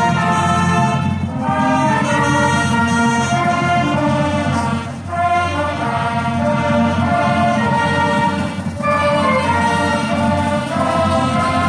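Music with brass instruments.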